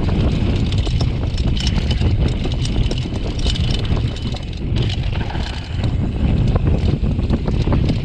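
Wind buffeting the microphone of a downhill mountain bike's on-board camera, over a steady run of clicks and rattles from the bike and its tyres on rough, dry dirt.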